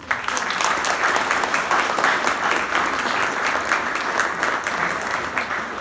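Audience applauding, breaking out suddenly and easing off slightly near the end.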